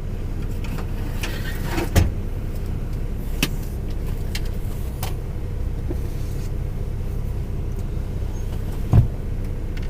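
Steady low hum of the DAF XF truck's idling engine heard inside the cab, with a few sharp knocks and clicks from kitchen things being handled while buttering bread. The loudest knock comes near the end.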